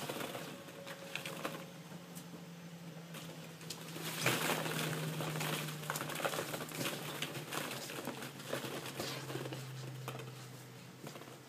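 Hollow plastic ball-pit balls clacking and rustling against each other as a Shetland sheepdog puppy and a cat tumble about among them, busier and louder from about four seconds in. A faint low steady hum lies underneath.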